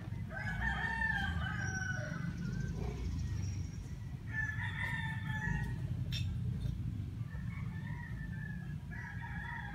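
A rooster crowing: one long crow about half a second in, then shorter calls around the middle and near the end, over a steady low rumble.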